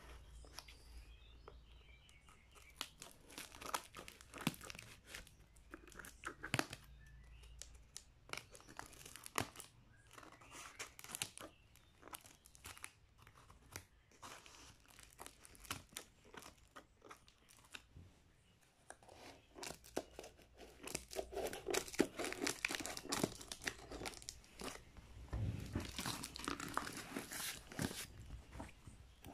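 A parcel's packing tape and plastic wrap being cut with scissors and torn open, with crackling and crinkling of the plastic. The crackling gets louder and denser about two-thirds of the way through.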